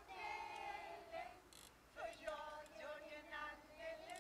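A group of young children and adults singing a song together, in held, sung notes rather than speech.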